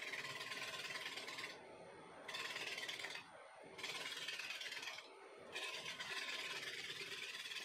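Wood lathe running with a turning tool cutting the spinning wood, a steady hissing scrape over the hum of the lathe. The cutting noise stops three times for about half a second as the tool comes off the wood, leaving the machine hum.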